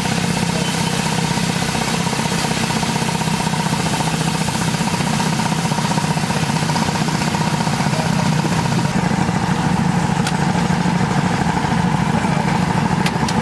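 A steady low mechanical hum under the hiss and bubbling of thin gravy boiling hard in a large flat pan; the upper hiss thins a little about nine seconds in.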